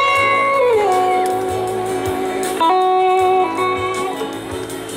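Live electric slide guitar on a red Gibson SG: long sustained notes that glide down between pitches, with the band's bass beneath.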